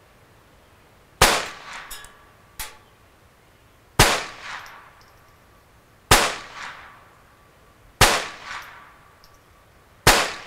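Ruger Charger .22LR semi-automatic pistol firing five single shots about two seconds apart, each crack trailing off in a short echo. A fainter sharp crack falls between the first two shots.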